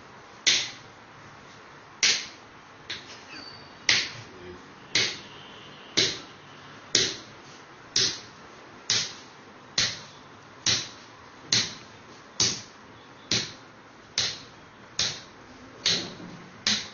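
A small hammer tapping a tool held against a person's lower back in percussive bodywork therapy. Sharp knocks come about once a second, quickening a little near the end.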